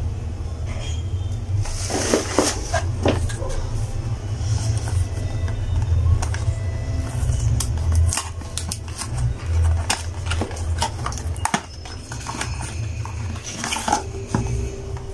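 Cardboard boxes and plastic packaging being handled and unpacked: scattered clicks, taps and crinkles over a steady low hum.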